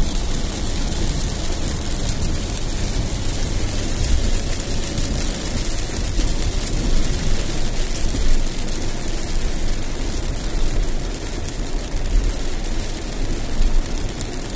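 Heavy rain beating on a moving car and its tyres hissing through water on the road, heard from inside the car with a low, steady rumble from the road and engine.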